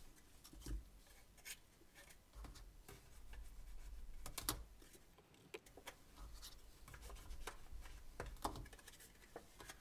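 Paper being handled, rubbed and pressed down as a flap of a paper bag is glued inside. There is a soft scraping of paper, with scattered light clicks and taps, the sharpest about halfway through.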